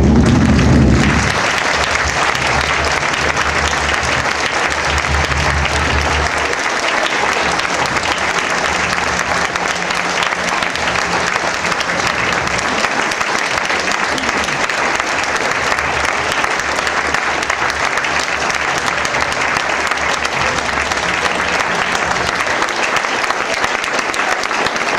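Audience applauding, a dense, steady clapping that keeps going without a break.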